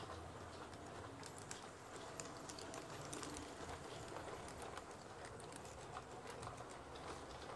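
LGB G-scale model train rolling past, its coaches' metal wheels clicking quickly and irregularly over the track joints above a steady low rumble of running.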